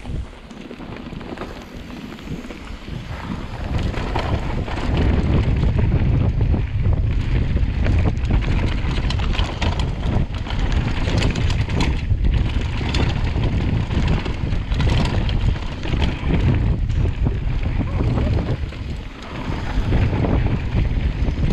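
Wind rushing over the on-board camera microphone of a downhill mountain bike descending a dirt trail, with tyres crunching on dirt and the bike rattling and knocking over rough ground. The rush builds over the first few seconds as the bike gathers speed, then stays loud, easing briefly near the end.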